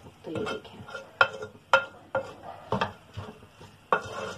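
A spoon stirring cooked fusilli macaroni in a metal pot. It scrapes through the pasta and knocks against the pot's sides with several sharp clinks.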